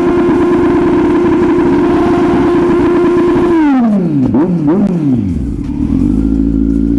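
Kawasaki Z900's inline-four engine held at high revs during a burnout on a rear tyre already worn through to its cords. After about three and a half seconds the revs drop, with a couple of brief blips on the way down, and the engine settles to a steady idle.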